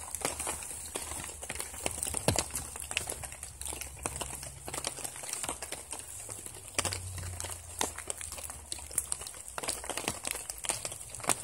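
Rustling and scattered, irregular light clicks from an angler moving about in a rain suit on a leafy bank and handling his fishing rod on a bite, over a steady hiss.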